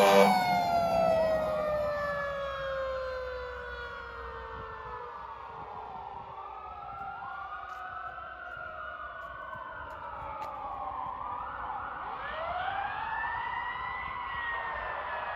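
Fire engine sirens. A long siren tone slides down in pitch over the first few seconds as the loudness drops, then rising and falling wails carry on and grow louder again near the end. The tail of an air-horn blast sounds at the very start.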